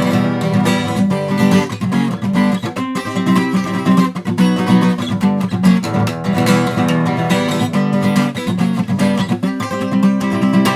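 Acoustic guitar strummed in steady chords, an instrumental passage with no singing.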